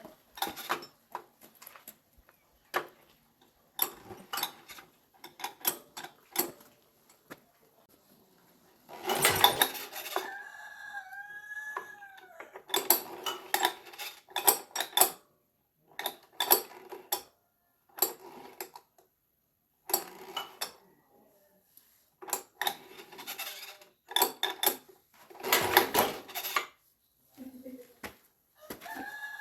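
Metal hand tools and tiller engine parts clinking and clattering in short irregular bursts during repair work. A rooster crows about ten seconds in and starts again near the end.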